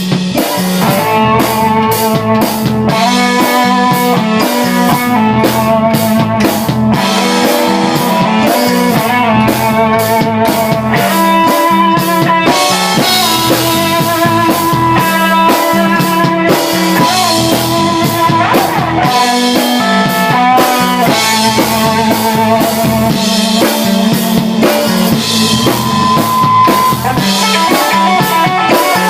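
A band playing live in rehearsal: drum kit keeping a steady beat under guitar, with held notes and no singing.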